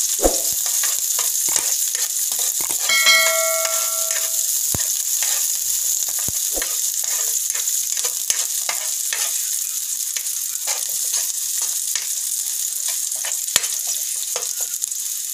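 Chopped garlic and onion sizzling in hot oil in a metal pan, sautéing toward golden brown, while a metal spatula scrapes and taps the pan in frequent short strokes. About three seconds in, a short metallic ring sounds for about a second and a half.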